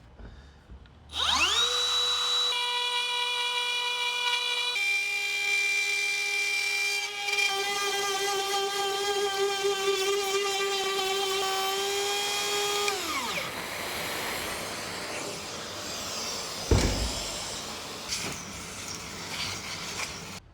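Handheld wood router spinning up with a rising whine about a second in, running at a high steady pitch while routing wood, its pitch dropping slightly twice along the way. It winds down with falling pitch a little past halfway, followed by softer rustling noise and a single knock.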